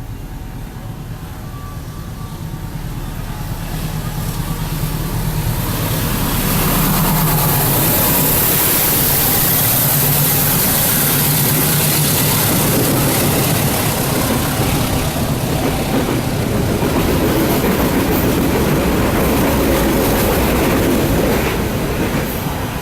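Train passing through the station: engine hum and rail noise build up over the first several seconds, stay loud, and begin to fade right at the end.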